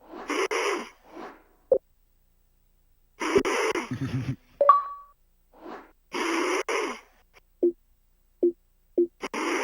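A man snoring loudly: four harsh rasping breaths about every three seconds, the second ending in a low rattling snort.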